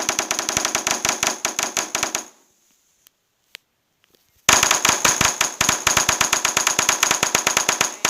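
Rapid key-press sound effects from a custom smartphone keyboard app, played through the phone's speaker as keys are tapped in quick succession. They come in two runs of fast clicks with a ringing tone, separated by a gap of about two seconds.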